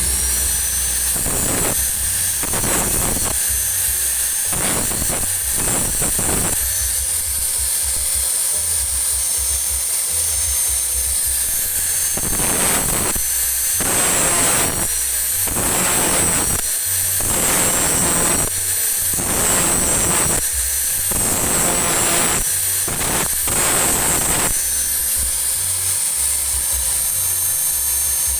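Small electric grinder running at a steady high whine and biting into steel in repeated short bursts, grinding down the built-up weld on a motorcycle's front sprocket shaft.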